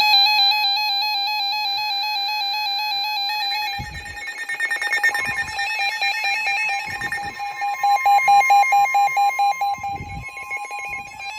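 Several NOAA weather radios sounding their alert alarms at once, giving overlapping steady and warbling electronic tones. A fast pulsing beep grows loudest about eight seconds in, and there are a few short low thuds.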